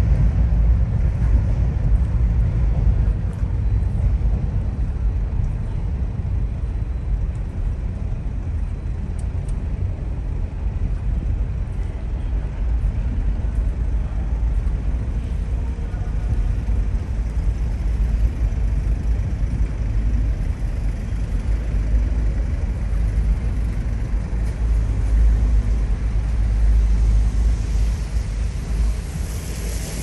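Outdoor city ambience: a steady, deep rumble that rises and falls a little, with no distinct events standing out.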